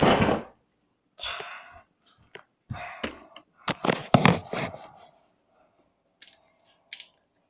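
A boy coughing and spluttering through a mouthful of dry flour: a string of breathy, gagging bursts over the first five seconds, then a few small mouth sounds near the end.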